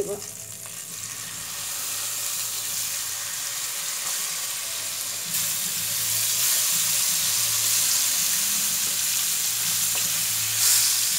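Rohu fish steaks frying in hot mustard oil in a wok, a steady sizzle. It builds over the first seconds, grows louder about five seconds in, and flares briefly near the end as a wooden spatula turns the pieces.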